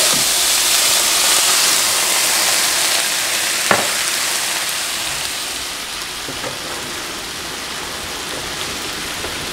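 Sliced onions and mushrooms sizzling hard in a hot frying pan with freshly poured soy sauce, the sizzle slowly dying down. A single sharp click about three and a half seconds in.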